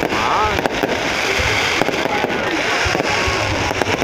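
Fireworks going off in a rapid, continuous run of bangs and crackles.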